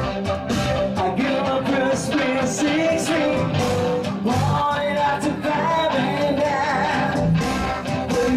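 Live band music with a man singing into a microphone through a PA, over amplified instruments.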